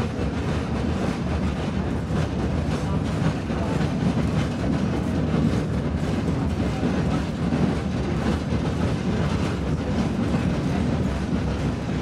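Heritage railway carriage running along the track, heard from inside with the window open: a steady low rumble of wheels on the rails.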